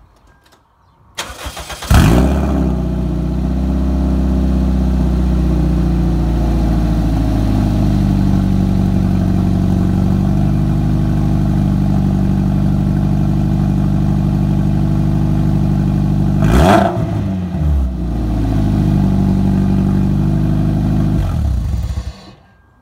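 Toyota MR2's 1ZZ-FE four-cylinder engine running through only a header and downpipe, with no muffler fitted: the starter cranks briefly, the engine catches about two seconds in with a flare of revs, then idles steadily. One quick blip of the throttle comes about two-thirds of the way through, and the engine is switched off near the end.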